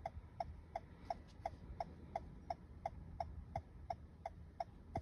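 2023 Toyota Camry's hazard-light flasher ticking steadily, about three short, slightly tonal clicks a second: the hazard lights are on.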